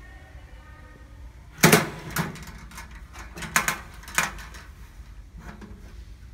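Chrome draw latches on a powder-coated steel toolbox being flipped open, a few sharp metallic clicks and clacks spread over about two and a half seconds, the first the loudest. Then a softer clack as the lid lifts.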